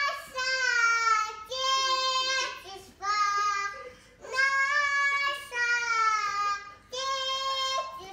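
Toddler girl singing into a handheld microphone: a string of drawn-out sung phrases, each about a second long, with short breaths between.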